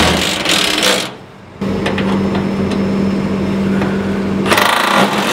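Cordless drill driving a self-tapping screw through a steel bar into a steel shipping container wall. The motor runs at a steady pitch for about three seconds from about a second and a half in, with a harsher, noisier burst at the start and again near the end.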